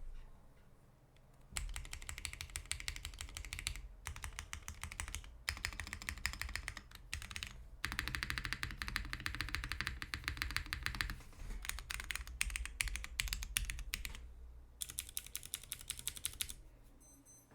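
Mechanical keyboard with vintage Cherry MX Black linear switches in an aluminium plate being typed on fast, in bursts of rapid keystrokes with short pauses between them.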